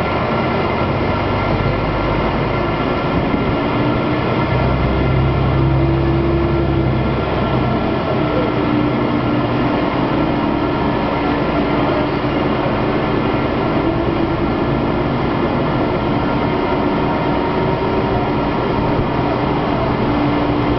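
Diesel railcar running, a steady engine drone over rail noise, with a deeper, louder stretch about five to eight seconds in.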